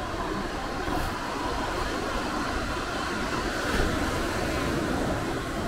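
Northern elephant seal bulls giving low threat calls as two bulls rear up against each other in a dominance face-off, over steady surf and wind noise.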